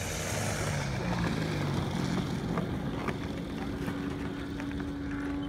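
Propeller engine of a radio-controlled model tow plane running steadily in flight, a constant engine drone.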